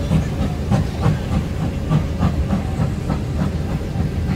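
Freight wagons of a steel train rolling past, their wheels clacking over rail joints about three times a second over a steady rumble and hiss.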